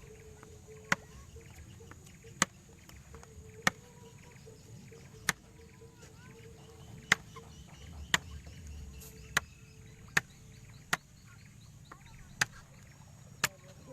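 A paddle knocking against the side of a small boat, one sharp knock roughly every second in an uneven stroke rhythm, with a faint steady hum underneath.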